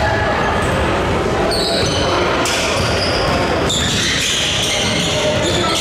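Indoor basketball game: a basketball bouncing on the court amid the echoing noise of play, with short high squeaks and some voices in the hall.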